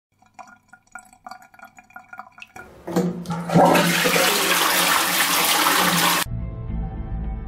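A western toilet flushing after the cistern's push button is pressed: a loud rush of water that starts about two and a half seconds in and cuts off abruptly about six seconds in.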